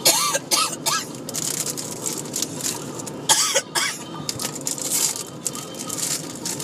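Automatic car wash heard from inside the car: a steady hiss of water spray on the body and windshield, broken by loud swishing bursts as the cloth curtains and brushes slap across the car, with a few short squeaks.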